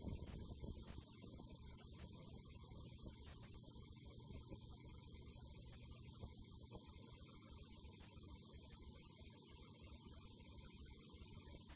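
Near silence: a faint steady low hum with a little hiss.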